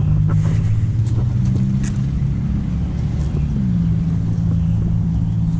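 A vehicle engine idling steadily, a low hum that dips a little in pitch just past halfway.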